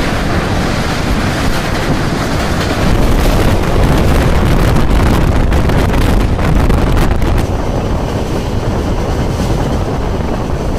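Rushing wind and deep rumble of a moving passenger express train, heard from an open coach doorway, with wind buffeting the microphone. It grows a little louder from about three seconds in until about seven seconds.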